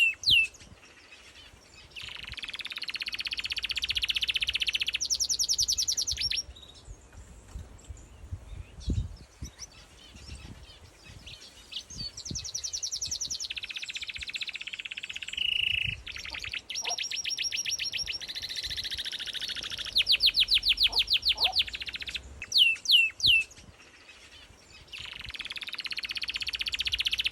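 A songbird singing repeated songs, each a buzzy phrase running into a rapid trill, with a few short falling whistles between songs.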